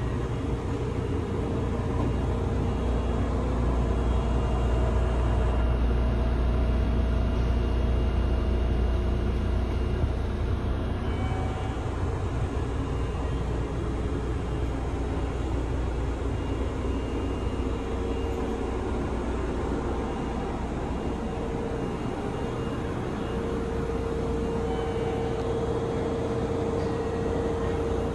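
Steady machinery hum inside a Kintetsu 7020 series electric train car, with a low rumble that swells for a few seconds early on. A steady mid-pitched tone runs throughout and grows stronger in the second half.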